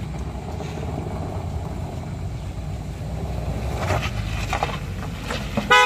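Honda CR-V SUV climbing a steep dirt slope, its engine a steady low rumble that grows a little louder as the car comes nearer. Just before the end there is a brief, loud high note.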